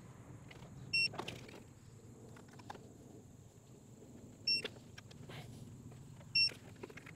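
Digital torque wrench beeping three times, a short high beep each time an intake manifold bolt reaches the set torque of 10 N·m. Faint tool clicks fall between the beeps.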